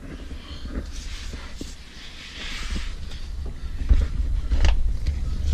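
Wind rumbling on the microphone, louder from about halfway through, with a few scattered knocks and clicks.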